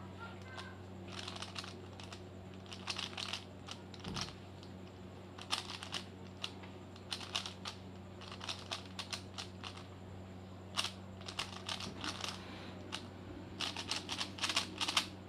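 Stickerless plastic 3x3 Rubik's cube turned rapidly during a speed-solve: bursts of quick clicking and clacking as the layers snap round, with short pauses between runs of moves, over a steady low hum.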